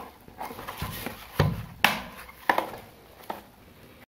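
Hard-disk enclosure being handled: a few clicks and knocks of its casing and end cap, the loudest a dull thump about a second and a half in. The sound cuts off abruptly near the end.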